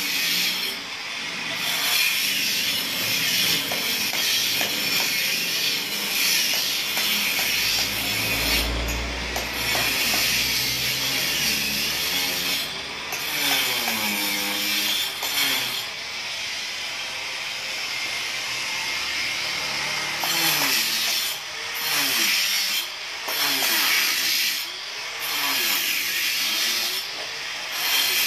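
Electric angle grinder cutting a groove into a concrete floor: a steady harsh grinding hiss that breaks off briefly several times as the blade is lifted from the cut, with the motor's pitch dipping and recovering under load.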